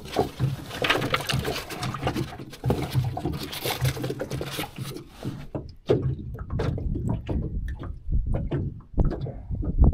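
Water splashing and sloshing for the first five seconds or so, then a low rumble with scattered light knocks.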